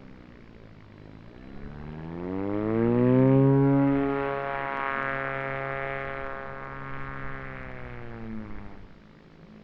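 ZOHD Orbit Neon RC flying wing's electric motor and propeller whining. The pitch rises over about two seconds to its loudest about three seconds in, holds steady, then drops slightly and fades out near the end.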